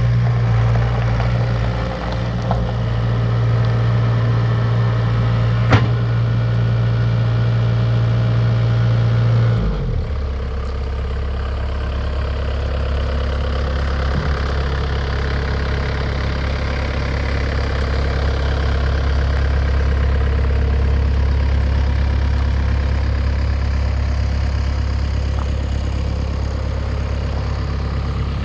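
Mustang 2086 skid steer's diesel engine running steadily at raised revs, then dropping to a lower, steady idle about ten seconds in. There is one sharp click a little before the drop.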